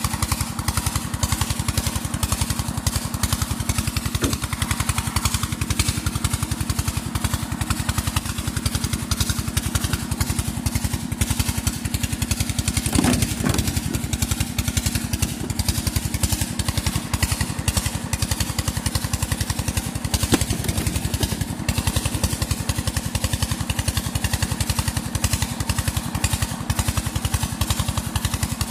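A small engine running steadily at a constant rapid beat, with a short louder noise about halfway through.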